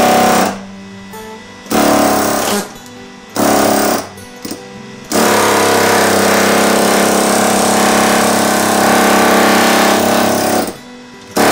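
Pneumatic air chisel hammering into screws in a plywood bus subfloor with a fast, buzzing rattle. It comes in three short bursts, then one long run of about five seconds. The chiseling jars loose screws too stuck to back out with a power driver.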